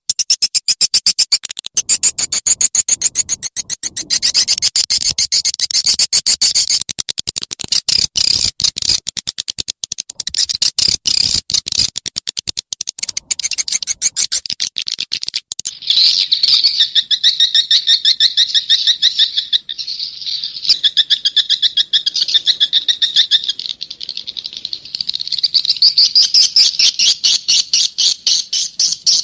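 Swiftlet calls from a lure-call recording: a fast, dense stream of high-pitched chirping twitters. About halfway through, the chirping drops to a lower, more even pitch. Swiftlet farmers play this sound to attract swiftlets to roost and nest in a swiftlet house.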